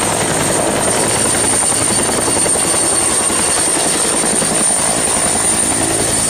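Turbine helicopter with a two-bladed main rotor lifting off: a high, steady turbine whine over the rapid beat of the rotor blades.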